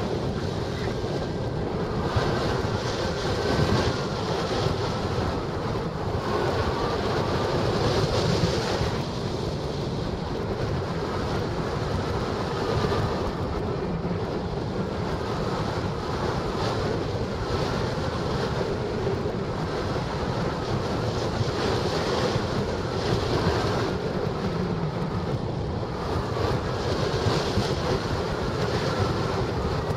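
Steady rush of flight wind on a hang glider-mounted camera's microphone, swelling and easing a little as the airflow buffets.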